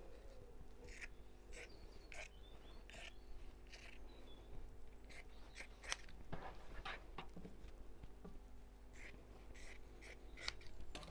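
Scissors snipping through fabric: a dozen or so short, faint snips at irregular intervals as the fabric is trimmed.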